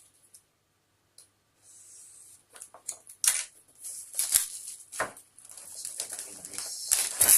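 Phone box being opened by hand: cardboard and plastic packaging rustling and scraping, with several sharp taps and knocks as the box is handled.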